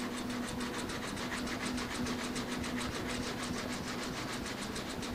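Wooden hand plane shaving dried epoxy flush on a wooden panel: a steady rhythmic scraping made of fast, evenly spaced ticks, over a low steady hum.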